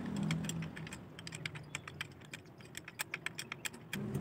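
Quick, irregular light metallic clicks and ticks, several a second, as a screwdriver works against a tractor clutch pressure-plate assembly.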